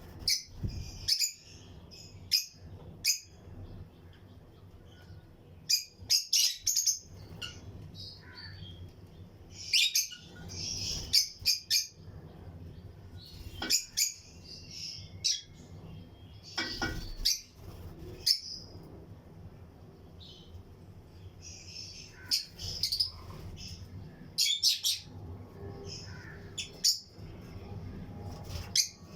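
Lutino lovebirds in a colony cage chirping: sharp, high-pitched calls in short clusters of a few notes, with pauses of a second or more between them.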